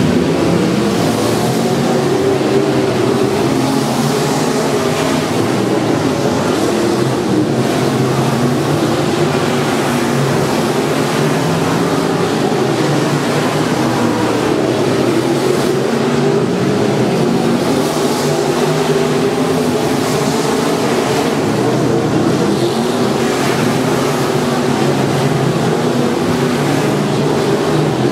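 A single dirt-track modified race car's engine running at speed, its pitch rising and falling over and over with the throttle through the turns.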